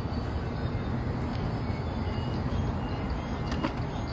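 Steady low outdoor background rumble, with a single sharp click about three and a half seconds in.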